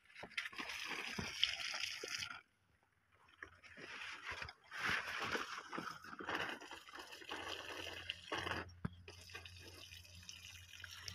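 Liquid nutrient solution gushing from a backpack tank's hose-and-pipe drench wand onto the soil at the base of chili plants, in three spells of a few seconds with short breaks as the flow is stopped and started.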